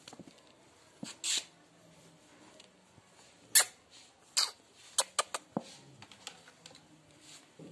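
Scattered short scratches and taps from a hand playing with a cat's paws close to the microphone. The loudest comes about three and a half seconds in, with a quick run of clicks about five seconds in.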